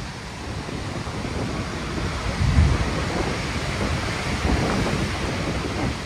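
Storm surf rushing steadily, with wind gusting on the microphone; a louder low surge about two and a half seconds in.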